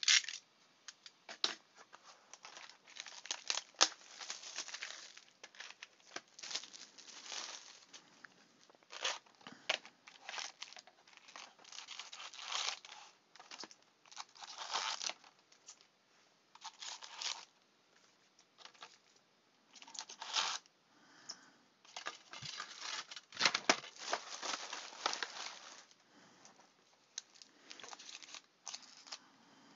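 Trading-card pack wrappers and box wrap being torn open and crumpled, in a run of short, irregular rips and crinkles as a box of Topps Stadium Club baseball card packs is opened.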